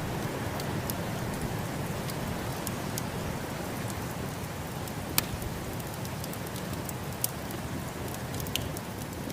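Wood fire crackling, with scattered sharp pops (the loudest about five seconds in), over the steady low rush of snowstorm wind.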